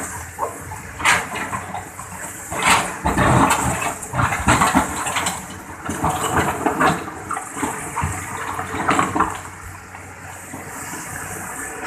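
Excavator digging into a wet river bank: irregular splashing and scraping of water and earth, over a faint steady motor hum.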